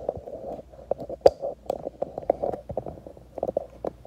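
Handling noise from a phone being gripped and moved while it records: rubbing on the microphone with a string of clicks and knocks, the sharpest about a second in.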